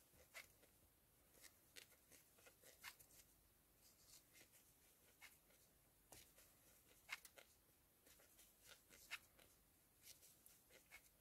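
Near silence with faint, irregular small clicks and rustles of a metal crochet hook working plush yarn.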